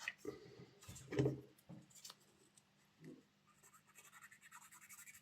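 A cotton bud damp with contact cleaner being rubbed over a model locomotive's metal wheel pickups, giving faint scratching and rubbing strokes. Near the end this turns into quick, even back-and-forth strokes.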